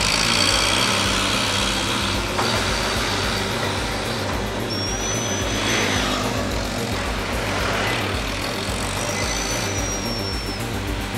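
Truck engine idling steadily, with two thin high whistling tones, one about five seconds in and one about nine seconds in.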